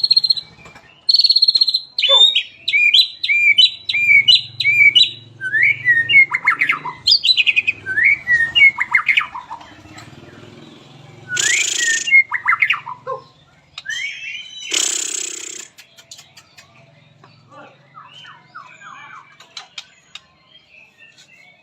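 White-rumped shama singing: fast runs of repeated whistled and chattering notes, with two loud, harsh bursts a little past the middle and softer notes near the end.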